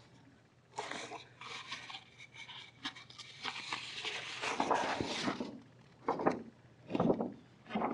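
Rustling of a large folded paper target sheet being unfolded and handled, with a few short, louder rustles near the end.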